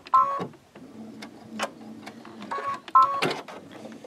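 Electric sewing machine sewing a straight stitch in short starts and stops, with a faint hum between two brief louder runs and scattered clicks.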